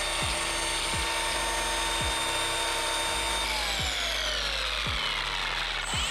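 Milwaukee M18 cordless polisher running steadily at speed, winding down about three and a half seconds in, then spinning back up near the end. It has just been regreased, and its noise is much better but not completely gone.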